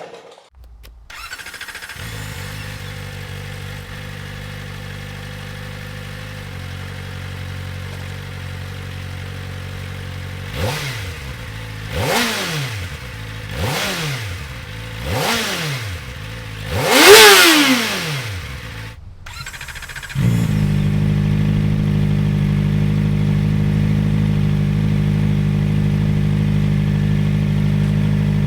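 Kawasaki ZX-4RR's inline-four engine, breathing through a Graves carbon slip-on exhaust, starts and idles steadily. It is then blipped five times, the last rev the highest and loudest. After a brief dropout it idles on, louder, to the end.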